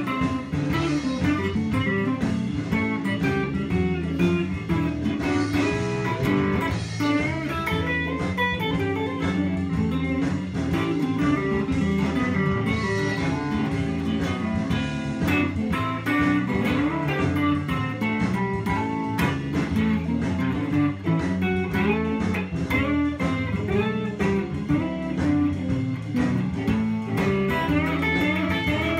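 Fender electric guitar playing a blues, a continuous run of notes.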